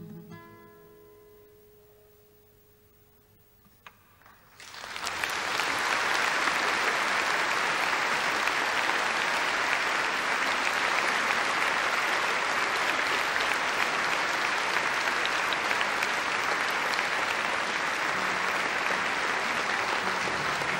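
The last guitar notes of the song ring out and fade. After a few seconds of quiet, about four and a half seconds in, the audience breaks into applause that swells quickly and holds steady.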